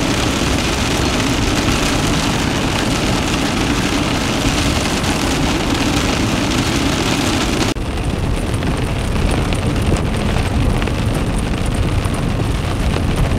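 Rain and wind on a VW T4 camper van, heard from inside with raindrops on the windows. About eight seconds in, the sound changes abruptly to the van's 2.5-litre TDI diesel running as it drives along a gravel forest track, with steady tyre and road noise.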